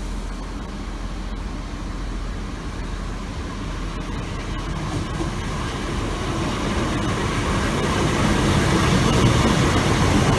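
Class 150 Sprinter diesel multiple unit running into the station, its engine and wheels on the rails growing steadily louder as it comes close and passes.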